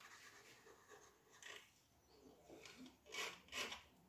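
Near silence, with two short faint scrapes near the end: a plastic stick working freshly poured resin into the recesses of a plywood cut-out.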